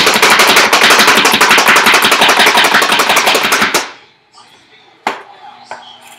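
Hand-operated plunger food chopper being pumped rapidly, its blades clattering as they chop onion, loud and fast; it stops about four seconds in, and a single sharp knock follows about a second later.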